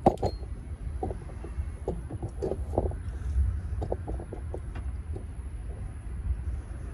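Paintless dent repair tools working a car's quarter panel: scattered soft taps and clicks at irregular intervals, the sharpest just at the start, over a steady low rumble.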